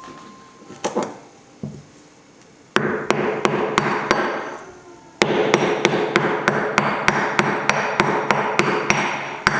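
Hammer repeatedly striking a geode in rapid blows, about three a second, starting about three seconds in with a brief pause around five seconds; the rock does not break.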